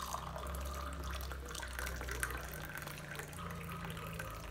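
Water pouring in a thin, steady stream from a saucepan into a tin of paint.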